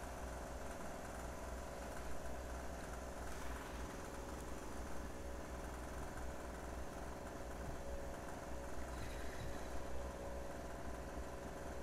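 A steady low mechanical hum, like a motor running, even in level throughout.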